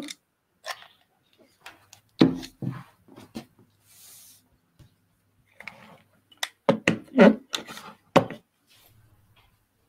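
Hot glue guns being handled on a tabletop: scattered clicks and knocks as they are worked and set down, with cloth being rubbed and pressed flat by hand.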